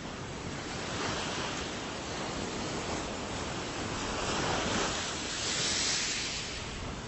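Sea waves breaking and washing on a shore in a continuous rush, swelling twice, about a second in and again around five to six seconds in.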